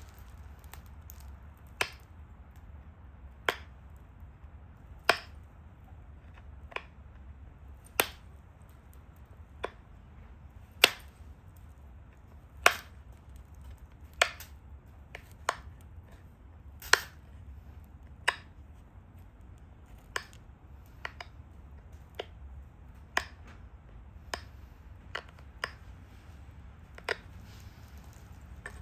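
Sharp, single clicks of flakes snapping off a stone Dalton point being knapped, about twenty of them spaced unevenly a second or two apart.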